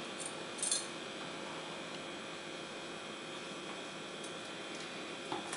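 Steady electrical mains hum with a faint hiss, and a small sharp click about half a second in.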